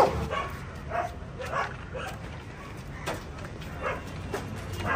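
Street dogs barking and yelping in short separate calls, with one loud rising yelp at the very start.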